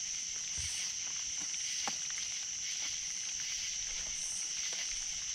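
Steady, high-pitched chorus of night insects such as crickets, with a few faint clicks.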